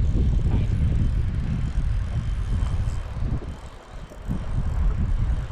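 Wind buffeting the microphone: a loud low rumble that eases briefly a little past halfway.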